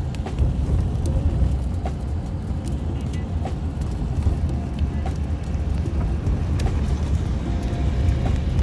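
Road noise inside a moving car's cabin: a steady low rumble from the tyres and engine.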